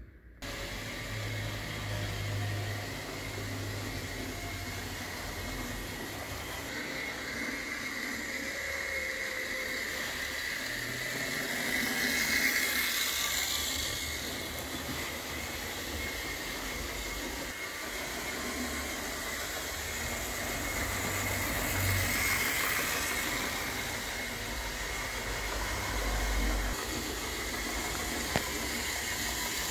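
Model Co-Bo diesel locomotive running around a model railway with a rake of Hornby Dublo coaches: a steady high motor whine over the rumble of wheels on the track, swelling louder twice as the train passes close, about 12 and 22 seconds in.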